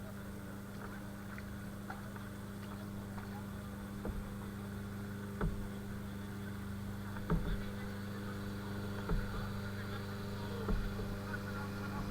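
A steady, low engine hum, slowly growing louder, with a soft knock about every one and a half to two seconds.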